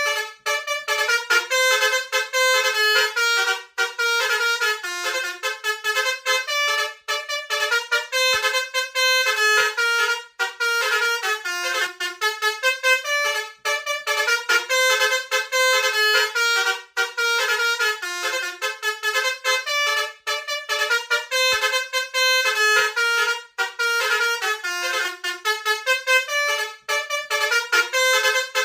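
Bus 'telolet' basuri horn, a set of air trumpets playing a quick melody, one note after another with short breaks, over and over.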